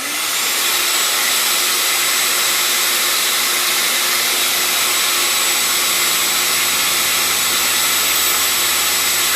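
Vacuum switched on and running steadily, coming up to speed in the first half second, over the high whine of the 6040 CNC router's spindle.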